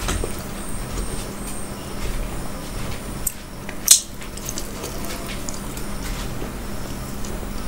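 Close-miked eating sounds: fingers dipping a piece of mughlai paratha in gravy, a sharp bite just before four seconds in, then chewing, over a steady low hum.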